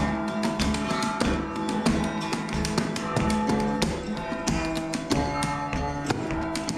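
Russian Orthodox church bells rung by hand: quick, dense strikes on the small bells over sustained ringing from the middle bells, with a low bell sounding a steady beat underneath.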